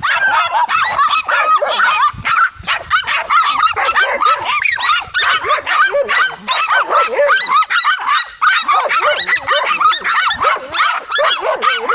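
Several dogs barking and yipping in a rapid, overlapping stream of short high-pitched barks, many a second, without a break.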